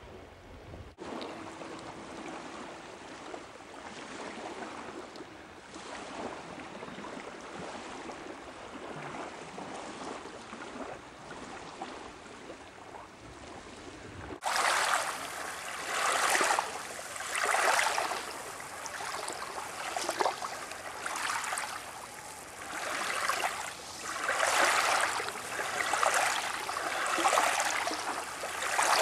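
Small waves washing over a fine-gravel shore. For the first half there is a soft, steady wash of water. About halfway it changes suddenly to louder surges that swell and fall back every one to two seconds, as water runs up and drains over the gravel.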